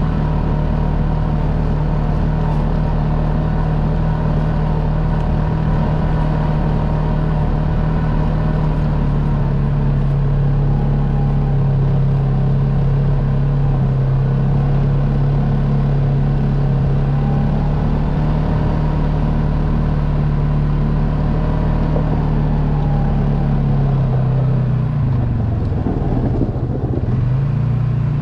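ATV engine running at a steady speed, its note dipping and wavering near the end as it slows down.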